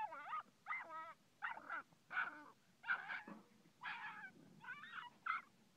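A dog yelping and whining in a rapid string of short, wavering cries, about two a second.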